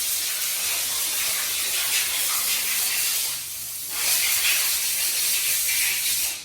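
A loud, steady hiss that dips briefly a little past halfway and cuts off suddenly at the end.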